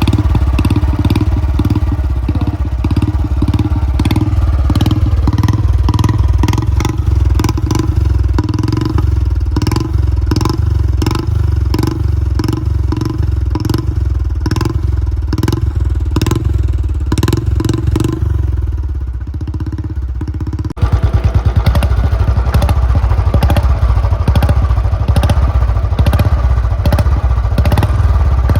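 Royal Enfield Bullet 350 single-cylinder engine running through a long Punjab aftermarket silencer on the stock bend pipe, giving a loud, slow, even thump. About 21 seconds in, the beat suddenly becomes faster and louder.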